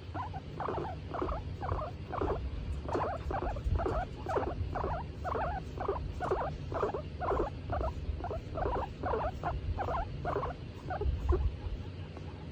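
Skinny pig (hairless guinea pig) making a run of short squeaking calls, about two to three a second, which stop shortly before the end, over a low steady rumble. The calls come while it is being stroked, a contented vocalisation.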